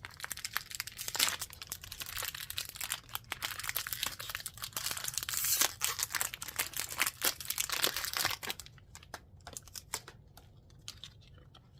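A sealed packaging pouch for a printer printhead being torn open at its tear notch and crinkled as it is handled, a dense crackling rustle that stops about nine seconds in, followed by a few light clicks and taps.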